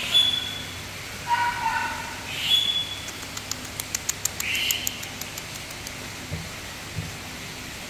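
Tiny poodles whining in short, high-pitched cries, at the start and again around one and a half to three seconds in. A quick run of light clicks follows a few seconds in.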